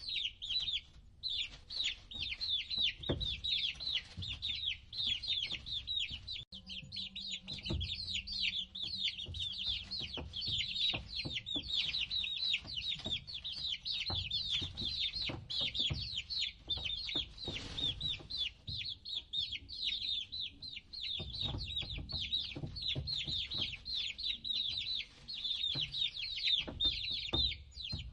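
A group of baby chicks peeping continuously: many high-pitched chirps in quick succession, each falling in pitch, with occasional soft knocks underneath.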